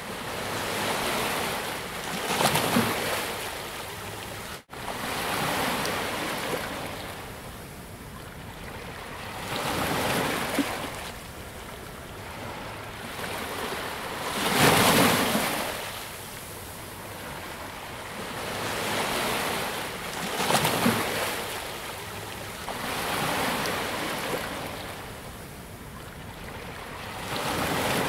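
Sea surf: waves breaking and washing up the beach, swelling and fading every few seconds, the loudest about halfway through. The sound drops out for an instant a little over four seconds in.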